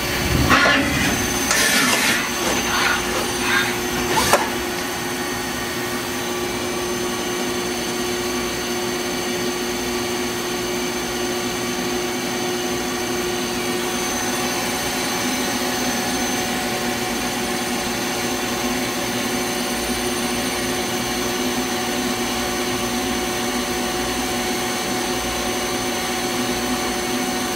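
Citizen M32 CNC Swiss-type lathe running with its main spindle at 3,500 RPM, turning a part under coolant: a steady machine whir with a constant hum. A few brief, harsher noises come in the first four seconds or so.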